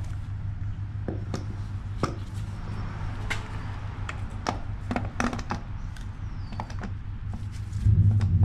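Scattered metal clicks and knocks as a starter motor is handled and set against a transmission bellhousing by hand, over a steady low hum. Near the end a low rumble swells up.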